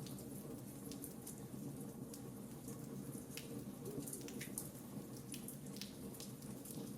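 Wood fire crackling: irregular sharp pops and snaps over a steady low rush of burning.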